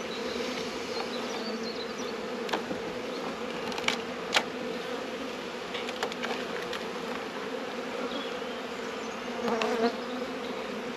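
Steady hum of a honeybee colony in an opened hive, with a few sharp clicks of a metal hive tool against the wooden frames.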